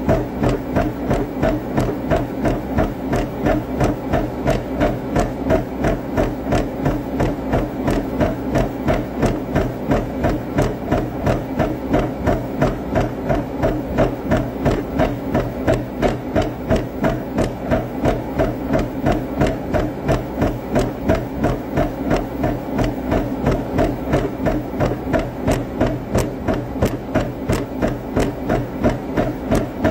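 A person bouncing on a wooden floor in a steady workout rhythm, such as skipping rope or boxing footwork, making quick, even taps and thumps about two to three times a second over a low hum.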